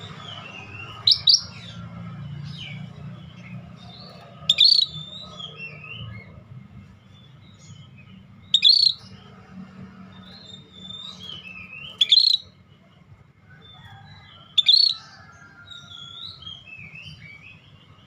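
Scaly-breasted bulbul calling: five loud, sharp, short notes a few seconds apart, with softer chirps and twittering between them. A steady low hum sits underneath.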